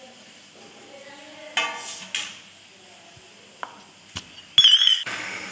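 Stainless-steel kitchenware clinking twice with a short ring, then a couple of light clicks and a brief wavering high squeak as a plastic lid is pressed onto a steel mixer-grinder jar.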